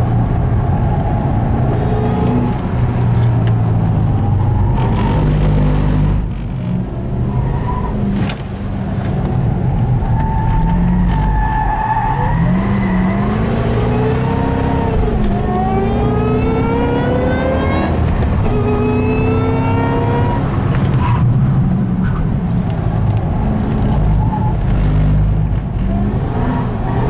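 Ford Shelby GT500's V8 engine heard from inside the cabin, driven hard on track: the revs rise and fall through the corners, dip briefly twice, then climb again and again in pitch through the middle of the stretch.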